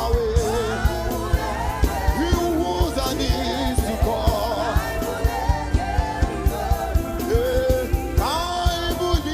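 Live gospel music: a lead voice singing over a band with a steady drum beat.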